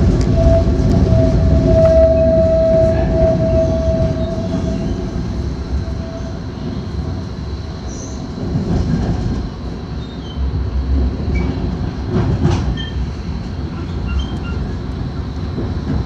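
Tram running on its rails, heard from inside the car: a steady rumble of wheels on track, with a whine that holds for the first few seconds and then fades out. The rumble eases off a little after about six seconds.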